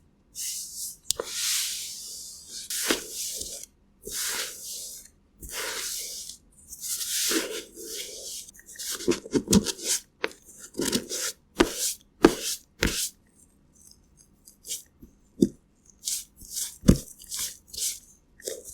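Close-miked ASMR makeup sound effects: a run of scratchy swishes lasting up to about a second each, giving way about halfway through to quicker sharp taps and clicks, with dead-silent gaps between them.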